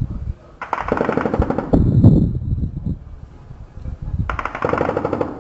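Two bursts of automatic gunfire, each about a second long, one near the start and one near the end; the first trails off into a low echoing rumble.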